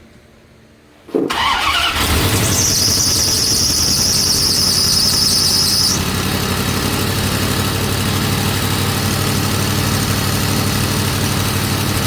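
1993 Dodge Ram's 5.9 L Magnum 360 V8 cranking briefly, catching about a second in and running steadily, with a high squeal for a few seconds after it catches. It runs with the EGR tube off and a large hole in the back of the intake, which the owner says makes it pull in too much air and rev high.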